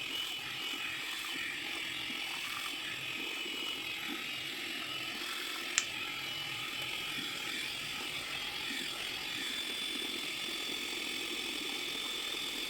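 Electric hand mixer running steadily, mashing grapes, with one sharp click about six seconds in.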